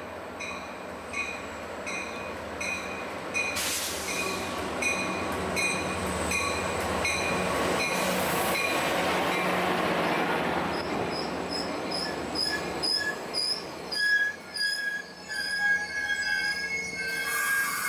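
Caltrain diesel train running past with wheels squealing and a bell ringing steadily, about one and a half strokes a second. A second, quicker-ringing bell comes in past the middle, and the rush of the train swells in the middle.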